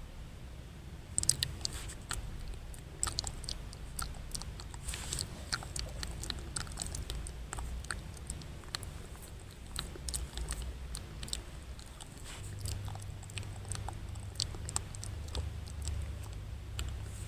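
ASMR mouth sounds close to the microphone: many quick, irregular wet clicks and smacks of lips and tongue.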